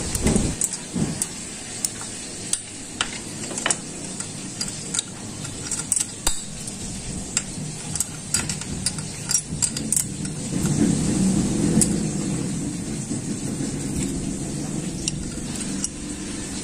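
Small metal hand tools clicking and clinking against the valve adjusters of a motorcycle engine during valve clearance adjustment, in many short, irregular taps. A low rumble comes up about two-thirds of the way through and carries on.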